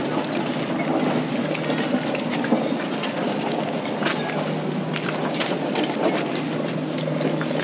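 Sailboat's inboard diesel engine running steadily in forward gear at low speed, a continuous rumble with a steady low hum, with scattered light clicks over it.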